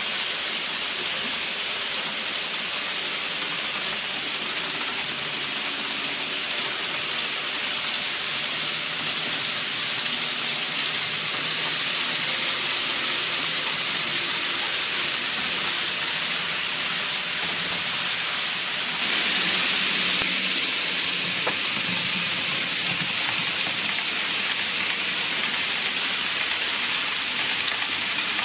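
Model trains running on the layout's track: a steady rolling hiss from wheels on the rails, which grows a little louder about two-thirds of the way through, with a couple of faint clicks.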